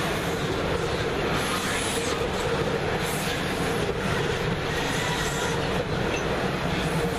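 Rolling-highway freight train, whole lorries riding on low-floor flat wagons, passing close by: a steady rumble of wagon wheels on the rails, with a steady tone running under it.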